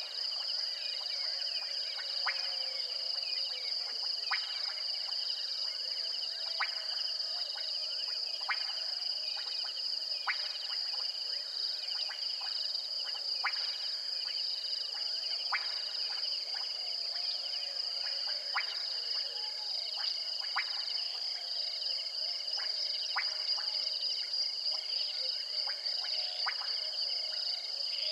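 Night chorus of insects and frogs at a waterhole: a steady, high-pitched insect trill, with sharp clicking calls every second or two.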